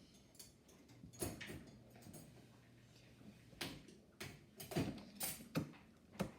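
A few faint, scattered clicks and knocks, most of them in the second half.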